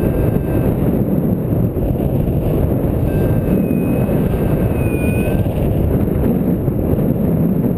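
Strong airflow rushing and buffeting over the microphone of a camera mounted on a paraglider harness in flight, a dense low rumble. A faint thin high tone comes in about three seconds in and fades out a couple of seconds later.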